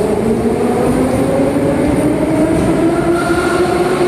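Moscow metro train running through a station, its traction motors whining in a steady rising pitch as it speeds up, over the rumble of the wheels on the rails.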